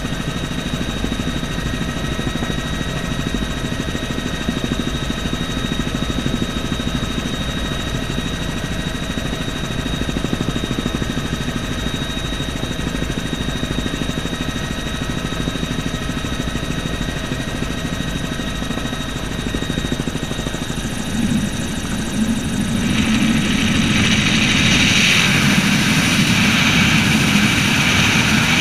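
Bell helicopter in flight, heard from inside the cabin: engine and rotor running steadily with a constant whine. About three-quarters of the way through it grows louder and a rush of air comes in over it.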